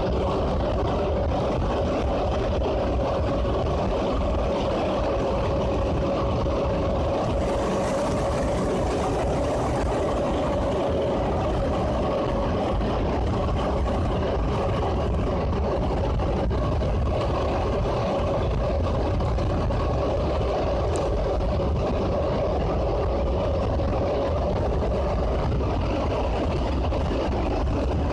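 Paris Métro MP89CA rubber-tyred train running steadily at speed through a tunnel, heard from inside the car. Under a rumble of tyres and running gear, a steady mid-pitched motor whine holds one pitch; the recordist thinks this motor sound is odd for this train.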